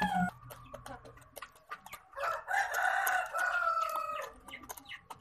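A rooster crows once, one long call lasting about two seconds that begins about two seconds in and falls slightly at its end. The end of another call is at the very start, and short taps are scattered around both calls.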